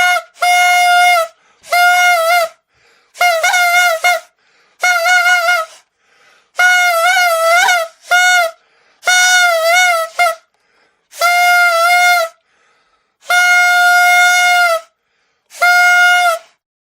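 Torotot toy trumpet blown in a series of about ten separate blasts, each held on one high, buzzy note with slight wavers in pitch, the longest about a second and a half near the end.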